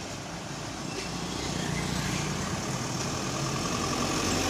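Street traffic, with a motor vehicle's engine running steadily and growing gradually louder.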